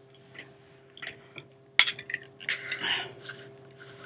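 Things being handled on a desk, with a sharp knock about two seconds in, then rustling and clicks as the plastic lid of a Nutella jar is gripped and twisted. A faint steady hum runs underneath.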